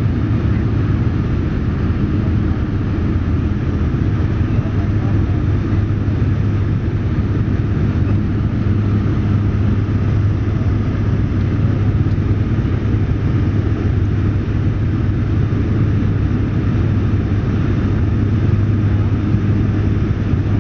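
Steady cabin drone of a Fokker 50's twin turboprop engines and six-blade propellers in the climb after takeoff: an even rushing noise with a constant low propeller hum.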